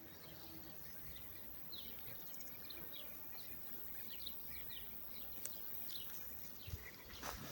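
Small songbirds chirping faintly in a steady string of short, falling notes, two or three a second, over a soft outdoor hiss. A brief rustle comes in near the end.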